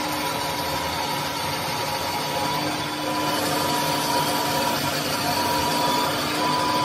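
Metal lathe running and turning the outside of a metal compressor gas-jacket sleeve, a steady machine hum with a constant whine, getting slightly louder about three seconds in.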